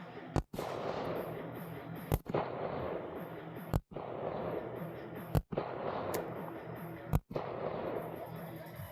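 Semi-automatic pistol firing five single shots, one about every one and a half to two seconds, each with a short echo trailing after.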